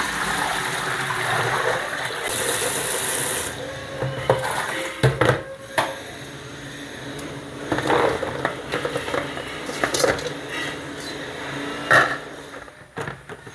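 Water running and splashing as genjer greens are washed at a kitchen sink, followed by a series of knocks and clatters of a steel bowl and colander against the sink and basin.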